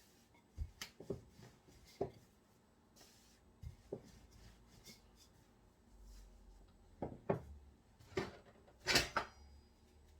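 Scattered light knocks and taps on a kitchen worktop as small circles of samosa dough are cut out and stacked, about ten in all, the loudest near the end.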